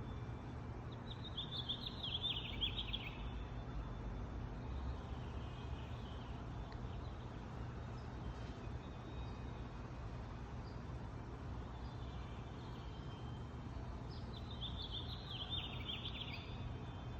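A songbird sings two short trilled phrases that fall in pitch, about a second in and again near the end, with faint chirps between. A light breeze makes a steady low rumble underneath.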